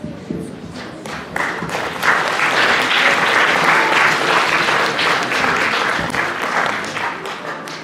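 Audience applauding, building up about a second and a half in and thinning out near the end.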